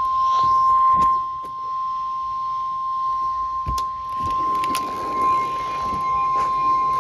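NOAA Weather Radio's 1050 Hz Warning Alarm Tone: one steady, unwavering beep over faint radio hiss and a few clicks. It signals that a warning, here a severe thunderstorm warning, is about to be read.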